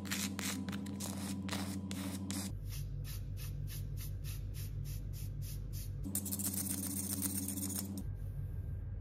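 Repeated short scraping strokes on ceramic floor tile and grout, a plastic scraper and then a hand rubbing over the surface, above a steady low hum.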